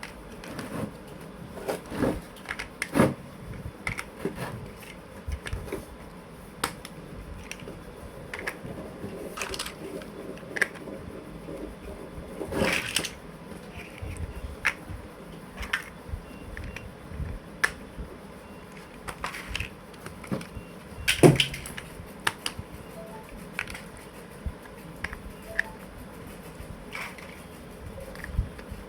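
Plastic toy building blocks being handled and pressed together: irregular sharp clicks and small knocks, with the loudest snaps about three seconds in and again about two-thirds of the way through.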